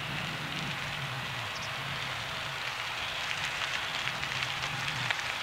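Steady airport apron noise: a constant turbine hiss with a low hum underneath, growing slightly louder in the second half while the hum fades out near the end.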